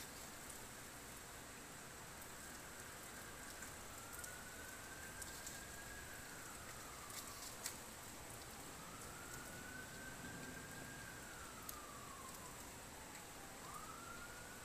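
Light rain falling with a steady soft hiss and a few light drop ticks, while a faint emergency-vehicle siren wails slowly up and down, falling twice and rising again near the end.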